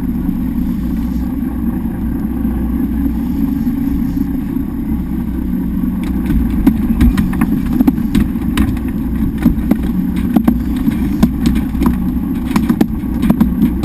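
A boat's engine running with a steady low drone. From about six seconds in, irregular sharp knocks and clicks sound over it.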